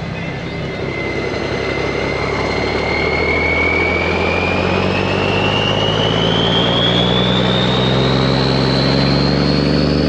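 Heavy diesel farm vehicle running under a steady engine drone, with a whine that climbs smoothly and steadily in pitch while the whole sound grows gradually louder.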